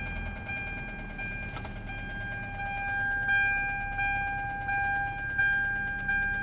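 An electronic chime dinging over and over, a new ding about every 0.7 seconds, each one fading before the next.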